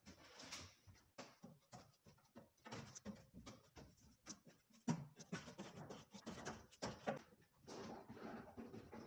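A person breathing hard in short puffs, with scattered light knocks and one sharper thump about five seconds in from hands and feet striking gym obstacle apparatus.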